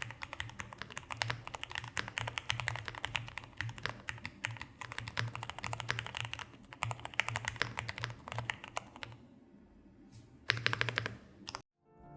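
GMK67 gasket-mount mechanical keyboard with Cherry MX Red linear switches and doubleshot PBT keycaps, its PCB tape-modded and the case packed with foam, typed on fast in a sound test. Rapid keystrokes run for about nine seconds, stop briefly, and a short burst of typing follows near the end.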